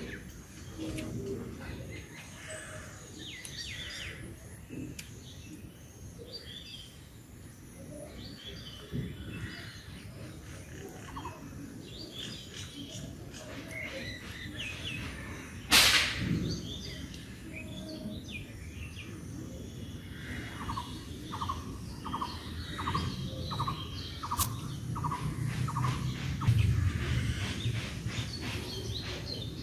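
Small birds chirping and calling, including a run of about nine short, evenly spaced notes, two a second, in the second half. One sharp click about halfway through is the loudest sound, and a low hum rises near the end.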